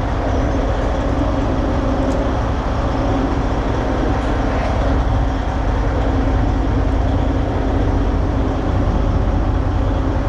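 Diesel semi-truck engine idling steadily, a constant low drone with a steady hum.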